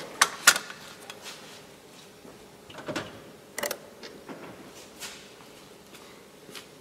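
A few sharp clicks and knocks from hands handling the test lamp and its wire leads. The two loudest come close together near the start, with a few more at irregular times after.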